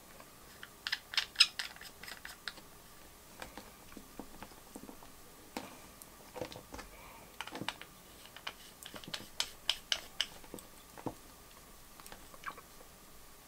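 Small irregular clicks and taps of metal screw assemblies being fitted into a clear acrylic Bitspower Summit REVO CPU water block, the parts knocking and rattling in the hands, in a few quick clusters.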